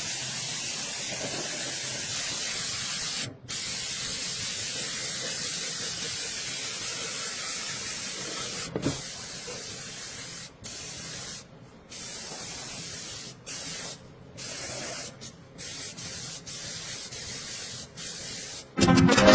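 Steady hiss of a water spray washing down a motorcycle. The jet cuts off for a moment once early on and then repeatedly in the second half, as the spray is stopped and started.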